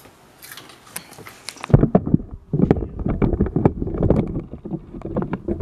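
Low, irregular rumbling and bumping from a handheld camera being moved and handled, starting about two seconds in after a few faint clicks.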